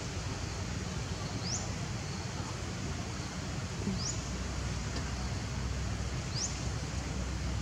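Outdoor ambience: a steady low rumble and hiss. A short, high, rising chirp is heard three times, about two and a half seconds apart.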